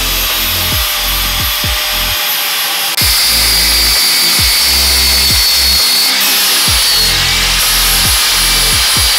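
Angle grinder grinding steel with a high, steady whine, preparing metal for welding. A background music track with a steady thumping beat plays alongside. The grinder sound jumps abruptly in level about 3 seconds in and again near 6 seconds.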